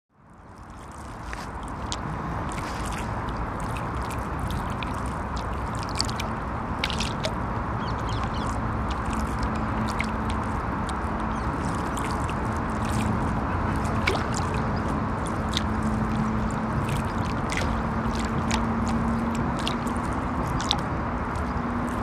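River water lapping against the bank, with scattered small splashes and drips, over a steady rumble of traffic crossing a bridge. The sound fades in over the first couple of seconds.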